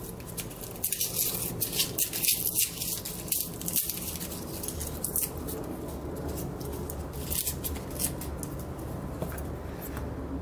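Dry, papery garlic skins crackling and rustling as cloves are broken off a garlic bulb and peeled by hand. The crinkling comes as a dense run of quick crackles in the first few seconds, then thins out to a few scattered ones.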